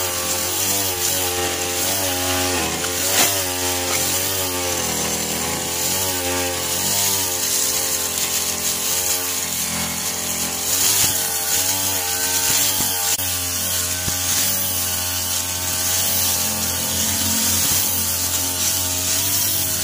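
Backpack brush cutter's small two-stroke engine running at high revs, its pitch wavering up and down as the line head cuts through grass.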